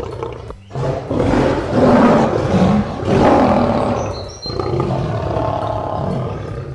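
Lion roaring at length, with a short break about four seconds in.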